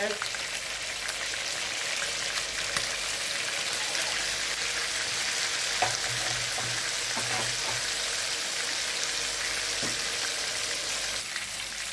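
Chicken wings frying in hot oil in a pan, a steady sizzle as the spices go in, with a few light knocks. The sizzle eases slightly near the end.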